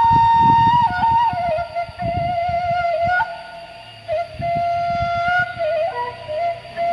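A slow flute melody of long held notes, stepping up and down in pitch, with an irregular gusty low rumble underneath from wind on the microphone.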